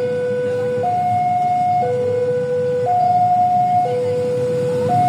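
Electronic two-tone railway level-crossing warning alarm, switching evenly between a lower and a higher tone about once a second, over a low rumble of road traffic.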